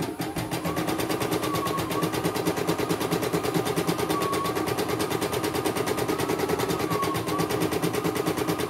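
CNY E900 portable computerized embroidery machine stitching a test run: a rapid, even clatter of needle strokes over a steady motor hum, with a tone that rises and falls slightly.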